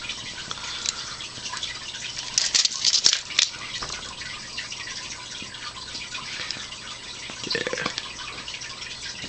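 A burning Fire Patty fiber fire starter sizzling and crackling, with a cluster of sharper crackles about two and a half to three and a half seconds in.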